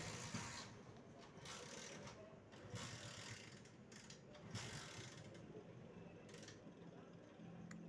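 Faint clicking and rasping of a plastic screw cap being turned and handled on a bottle of paint thinner.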